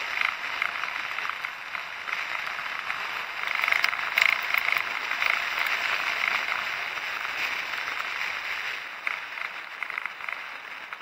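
Steady, crackly rushing noise of travel along a road as picked up by an action camera's microphone, a little louder around four seconds in.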